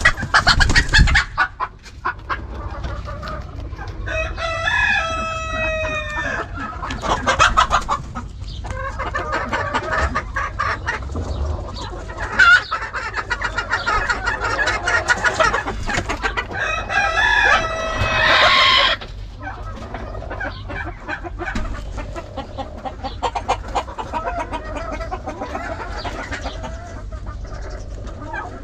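A flock of chickens clucking continuously, with a rooster crowing twice, about four seconds in and again around seventeen seconds in.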